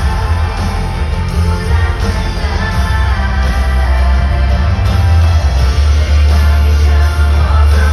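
Live pop music played through a concert hall's loudspeakers: a woman sings a ballad over the band, with heavy, booming bass.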